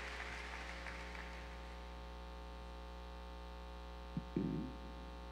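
Applause dying away in the first second or so, leaving a steady electrical buzz from the sound system. About four seconds in, a short knock and a brief muffled thump as the podium microphone is handled.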